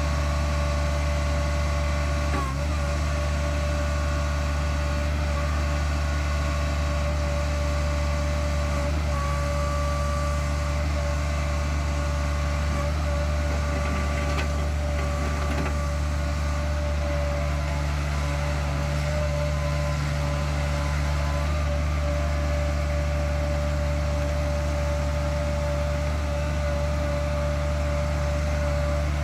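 Kubota 1.1-litre three-cylinder diesel of a compact tracked loader running at a steady speed, with a steady high whine over the engine note.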